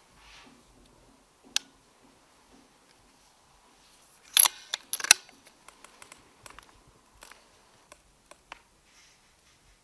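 Metallic clicks and rattles of an air rifle being handled after a shot: a single sharp click, then a louder cluster of clicks about four and a half to five seconds in, followed by scattered small clicks.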